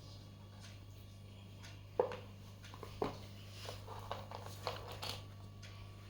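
Hands handling an iPhone box and its packaging: two sharp knocks, then a run of small clicks and rustling, over a steady low hum.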